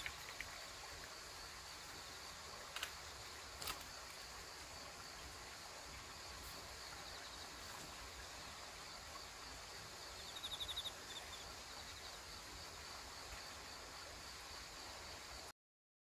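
Steady high chorus of insects in grass, with a couple of sharp clicks about three and four seconds in and a short pulsing trill a little past the middle; the sound cuts off to silence just before the end.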